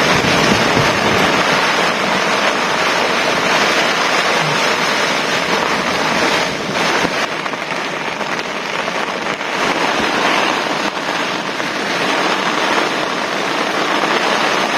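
Heavy rain falling steadily, with gusting wind.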